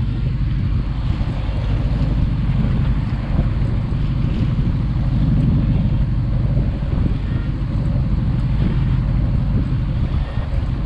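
Boat engine running steadily with a low rumble, with wind buffeting the microphone.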